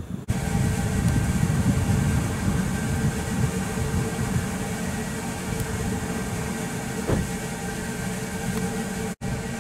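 Kintetsu 80000 series Hinotori electric train standing in the depot, its onboard equipment running with a steady hum and a few faint whining tones over a low rumble. The sound drops out for an instant near the end.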